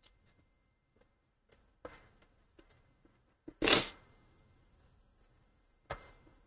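Quiet room broken by three brief noises close to the microphone: a small one about two seconds in, a louder one lasting about a third of a second just before four seconds in, and another near the end.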